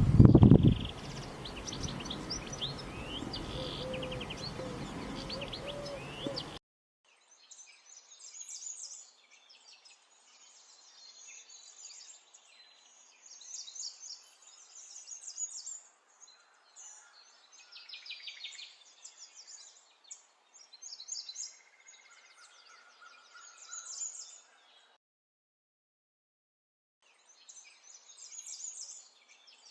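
Small birds chirping and singing in quick, high trills and twitters, across several joined clips. A loud, low thump comes in the first second, and the birdsong drops out for a couple of seconds near the end.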